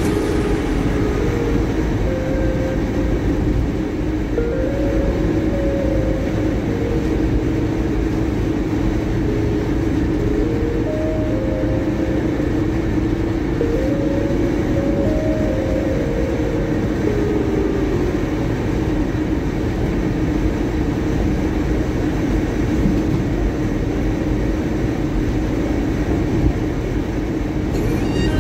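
Inside a moving car at highway speed: a steady rumble of tyres on the road and wind, with a constant low drone.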